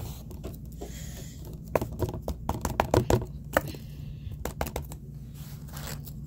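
Paper cut-out puppets and cardboard being handled: scattered light taps and clicks, a quick run of them in the middle, with some paper rustling. A steady low hum sits underneath.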